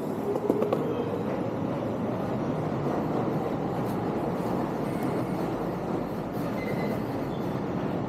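Skateboard wheels rolling steadily over smooth stone paving, a continuous rumble with a few faint ticks over the joints in the floor.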